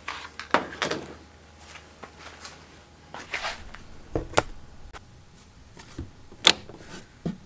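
Handling rustle and a scatter of sharp clicks and knocks; the loudest click, about six and a half seconds in, comes from a hand working the boat's marine toggle switch panel to switch the LED light bars on.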